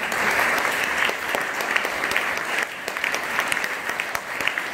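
Audience of schoolchildren applauding, many hands clapping together. The clapping is dense at first and thins out a little after a couple of seconds.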